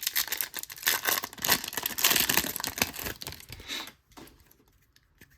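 Foil wrapper of a baseball card pack crinkling and tearing as it is opened by hand, stopping about four seconds in.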